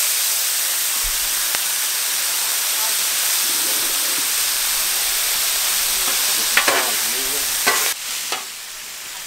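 Pulled pork sizzling in oil on a Blackstone flat-top griddle, with a metal spatula scraping and knocking on the steel a few times. The sizzle drops quieter near the end.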